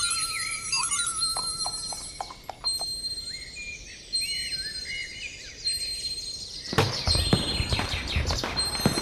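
Cartoon-style magic sound effects: warbling, twittering bird-like chirps over high sparkly tones. From about seven seconds in, a rapid clatter of sharp knocks joins them.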